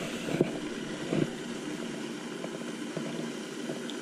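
A steady machine-like hum and rush. Two short, louder sounds stand out in the first second and a half.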